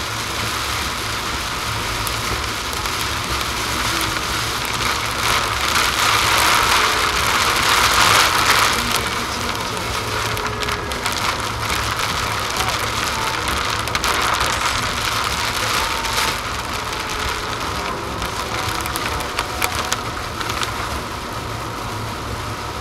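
Heavy downpour drumming on a moving car's roof and windshield, heard from inside the cabin, with the hiss of tyres on a flooded road. The rain swells to its heaviest about eight seconds in, then eases a little toward the end as the shower lets up.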